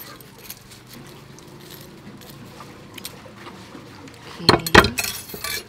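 Faint light clicks of metal tongs and crisp fries being moved in a stainless strainer and bowl, then a few loud knocks close together about four and a half seconds in.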